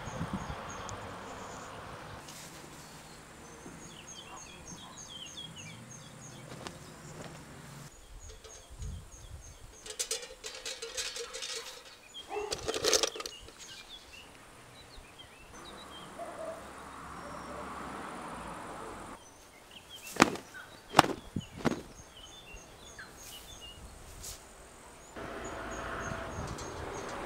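Garden ambience with a small bird repeating short high chirps, and the handling of laundry pegs: plastic clothespins clattering in an enamel pail about halfway through, then a few sharp clicks as pegs are clipped onto the drying rack.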